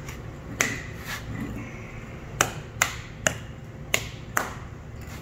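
Sharp metallic clicks and clinks of small steel parts being handled and set down on a concrete floor, about seven in all at uneven intervals, each with a brief ring.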